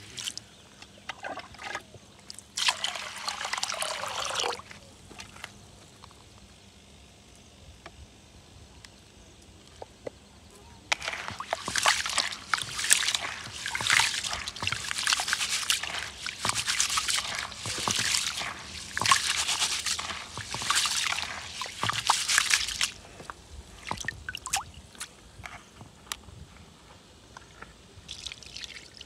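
Water poured briefly from a plastic container onto raw rice in a plastic basin, then hands scrubbing and swishing the rice in the water in quick repeated strokes for about twelve seconds: rice being washed before cooking.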